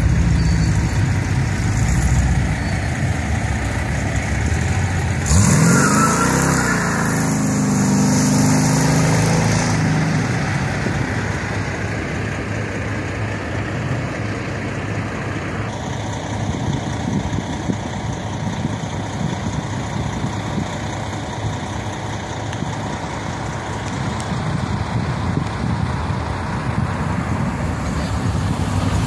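Chevrolet C10 pickup's engine idling, then revved hard about five seconds in for a burnout: the rear tyres spin and squeal for about five seconds while the engine pitch climbs. The engine sound then fades as the truck drives away, and builds again as it comes back past near the end.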